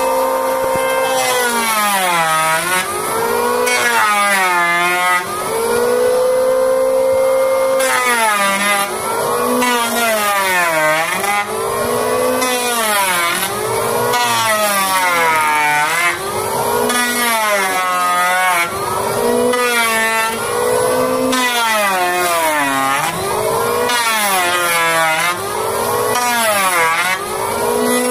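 Electric wood planer running with a loud motor whine. The pitch sags and recovers over and over, roughly every one and a half seconds, as the cutterhead bites into the wood and the load comes on and off.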